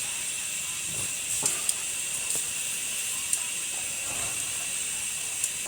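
Food frying in a pan on a camp stove: a steady sizzling hiss with a few small pops.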